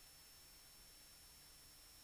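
Near silence: a faint steady hiss with a thin high whine.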